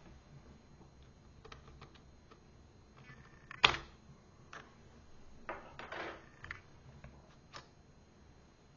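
Scattered small clicks, taps and short scrapes of hands and tools working on a laptop's parts, with one sharp click about three and a half seconds in.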